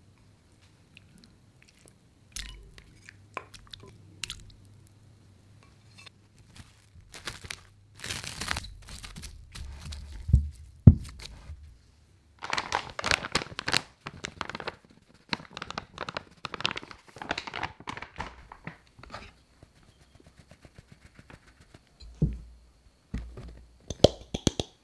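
Close-miked food-prep handling sounds: stretches of crinkling and rustling with scattered sharp clicks and knocks of bowls and utensils, and a few knocks near the end as cornstarch is sifted through a metal sieve.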